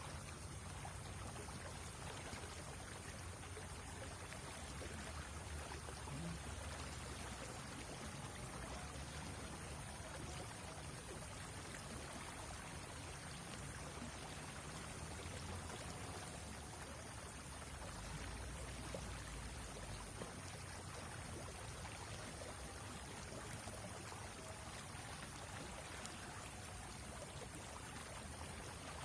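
Steady, low rush of a shallow river's water running.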